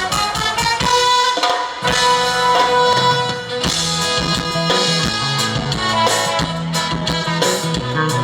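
Band music with drums, played through a concert sound system during a sound check; a bass line comes in about two seconds in.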